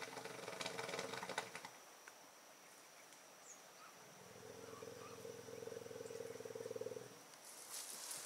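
Asian elephant rumbling: a short buzzy rumble at the start and a longer, steady one of about three seconds midway. Near the end, dry brush crackles and rustles.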